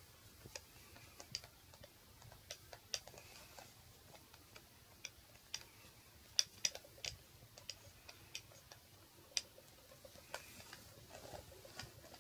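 Adhesive lint roller rolled over a futon cover and a cat's fur, its sticky tape pulling off the fabric in faint, irregular crackling ticks, a few of them sharper about six to seven seconds in.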